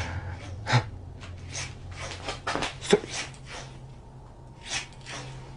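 Scattered short clicks and light taps, the sharpest near the start and about three seconds in, over a low steady hum.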